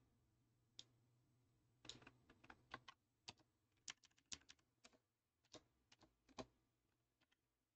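Faint computer keyboard keystrokes, irregular and in short quick runs, as text is typed and edited.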